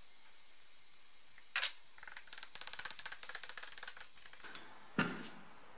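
A sharp metallic click, then a fast run of light metallic taps for about two seconds, then one heavier hammer blow that rings briefly: a small hammer striking the centre of the inner CV joint on a BMW E30 325i driveshaft.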